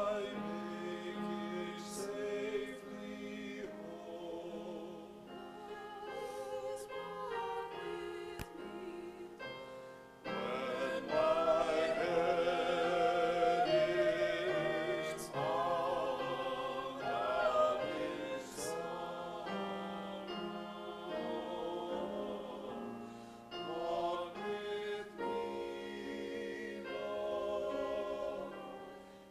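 Small church choir singing in parts. The held notes waver, and the singing grows louder from about ten seconds in before easing back.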